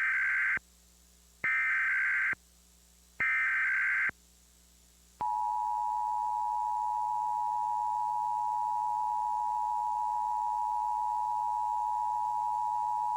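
Emergency Alert System required monthly test: the tail of one SAME digital header burst, then two more data bursts about a second each, followed from about five seconds in by the steady two-tone EAS attention signal (853 and 960 Hz) holding without a break.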